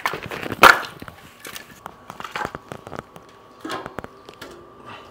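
Split pecan logs being set into a steel offset smoker firebox by hand: a run of wooden knocks and clunks as the logs hit each other and the firebox, the loudest about half a second in.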